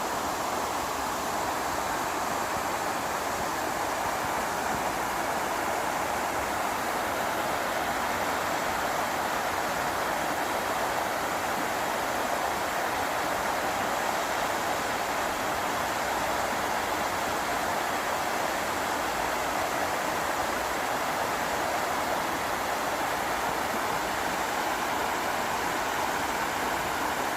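Waterfall in a mountain valley stream, water falling and splashing with a steady, unbroken rush.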